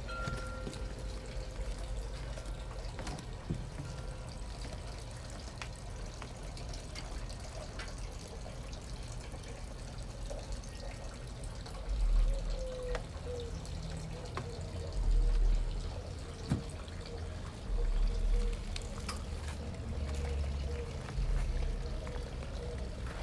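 Water trickling steadily from a small garden water feature. From about halfway through, several low gusts buffet the microphone.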